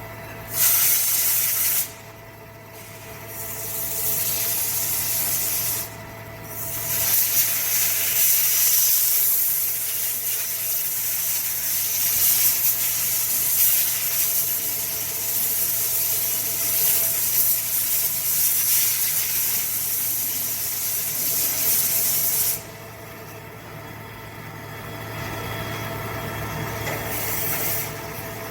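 CNC machine cutting an electric motor housing: hissing, rubbing noise in several stretches, the longest lasting about fifteen seconds and stopping suddenly, over a steady machine hum.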